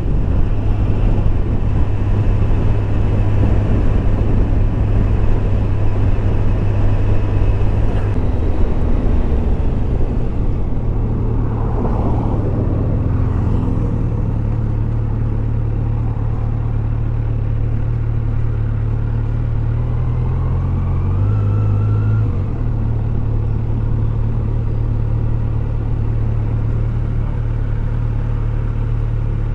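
Kawasaki Z900 SE's inline-four engine running steadily at low speed, with a slight shift in pitch about a third of the way in and a brief wobble in pitch later on.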